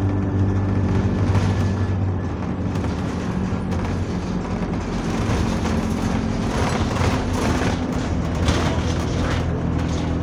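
Bus engine running steadily, heard from inside the passenger saloon, with a low hum and rattle from the bodywork; the engine note drops slightly about two seconds in and more road and rattle noise builds up in the second half.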